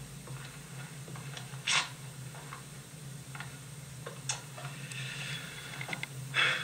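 Low steady hum with a faint hiss, broken by three short, sharp clicks, about two seconds in, about four seconds in and near the end.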